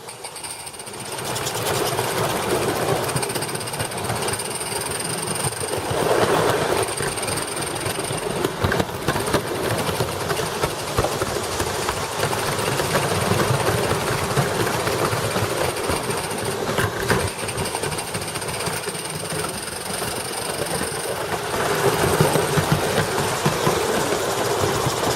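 A train running, a steady dense rattle with a thin high tone coming and going.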